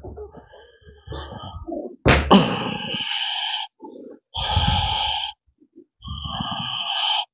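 A man growling and roaring like an animal: three loud, drawn-out roars about two, four and a half and six seconds in, the last cutting off abruptly, after a few faint grunts.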